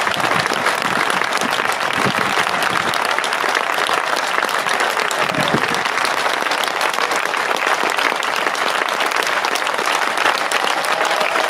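Crowd of tennis spectators applauding steadily: many hands clapping together for the winner at the end of a match.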